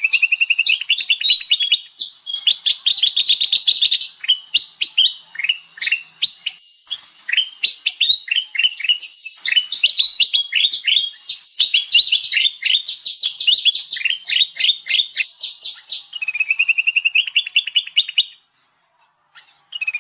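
Sooty-headed bulbuls (kutilang) chattering in a lure-call recording: dense, rapid chirps from several birds overlapping, with a thin steady high tone behind them. The chirping breaks off briefly near the end, then starts again.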